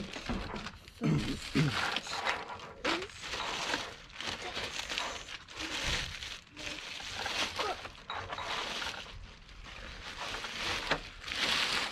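Cardboard box and plastic packaging rustling and crinkling in irregular bursts as the RC truck is lifted out of its box.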